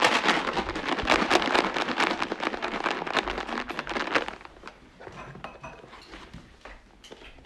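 Loud, close crinkling and rustling that starts suddenly and eases off after about four seconds into faint scattered clicks and rustles.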